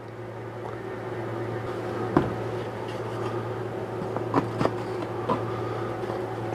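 A steady low hum in the background, with a few light clicks and knocks as laser-cut bamboo box pieces are handled and fitted together on the bench.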